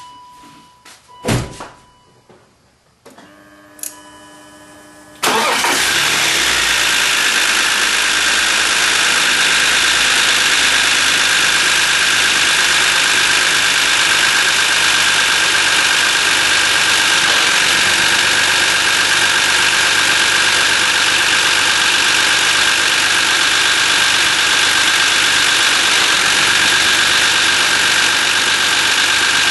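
BMW E39 engine started about five seconds in, after a thump and a few faint electronic tones, then running steadily at idle. The owner is asking about an abnormal engine noise and suspects the hydraulic lifters or the VANOS camshaft timing system.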